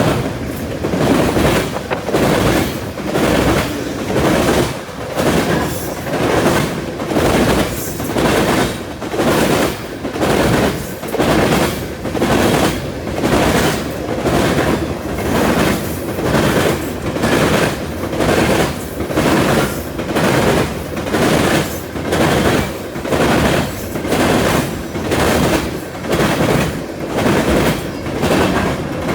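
Freight train cars rolling past at a grade crossing, the wheels clacking over the rail in a steady rhythm about once a second.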